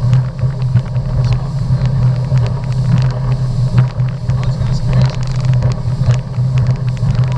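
Motorboat engine running steadily at speed, a constant low drone, with many short knocks over it.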